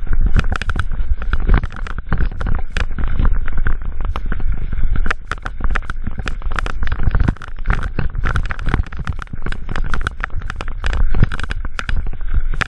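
Mountain bike descending a rocky trail: a rapid, irregular clatter of knocks and rattles as the tyres and bike jolt over loose stones, over a continuous low rumble.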